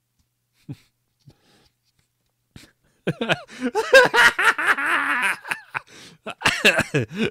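A man laughing hard, breathy and wheezing, breaking out about three seconds in after a near-silent pause.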